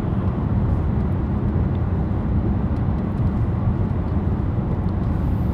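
Steady low rumble of a car heard from inside the cabin: road and engine noise.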